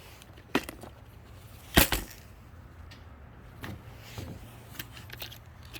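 Hard fishing lures and tackle being handled: a few scattered clicks and knocks, the loudest about two seconds in.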